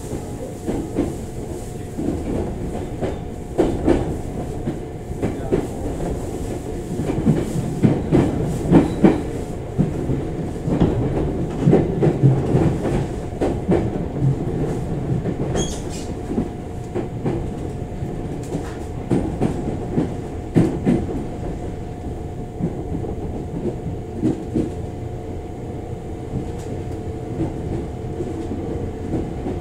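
Inside a JR 205 series 5000-subseries electric commuter train running along the line: a steady rumble of the carriage with a steady humming tone, and irregular clacks of the wheels over rail joints, busiest about a third of the way in.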